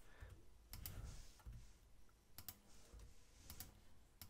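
Faint, scattered clicks of a computer mouse and keyboard keys, a few presses in quick pairs.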